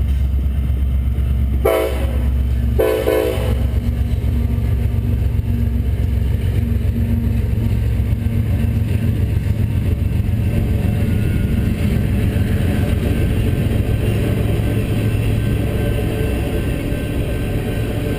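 Freight train rolling past: a steady low rumble of wheels on the rails, with two short horn blasts about two and three seconds in, the second a little longer.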